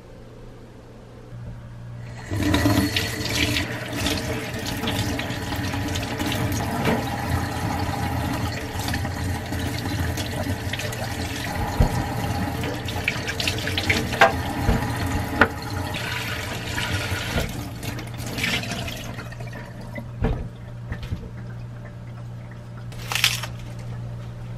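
Kitchen tap running into a stainless steel sink, starting about two seconds in, as vegetables are rinsed under it in a metal colander, with scattered knocks and clatters from handling the produce and colander. The flow runs softer in the last few seconds.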